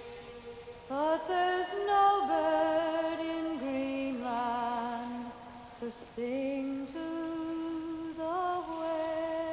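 A woman singing a slow sea ballad about whaling, drawing out long held notes that slide up into pitch, one note after another.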